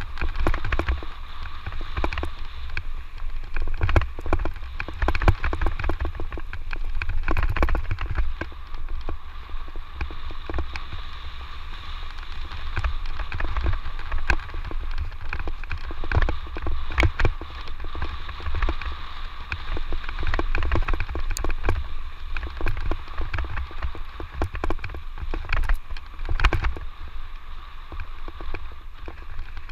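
Electric mountain bike ridden over a rough dirt trail: constant rattling and clattering of the bike over rocks and roots, with wind rumble on the microphone and a faint steady whine.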